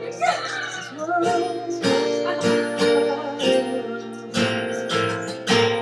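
Music: guitar chords struck in a steady pattern, with no rapped words.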